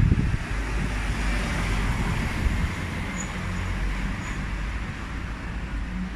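A road vehicle passing along the street, with a low rumble and a tyre hiss that swells over the first few seconds and then eases, and wind buffeting the microphone.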